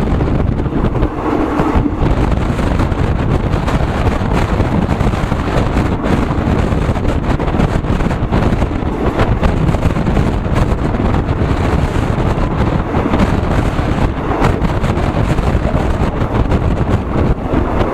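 Loud, steady wind rush buffeting the microphone, with the low running noise of a moving vehicle beneath it.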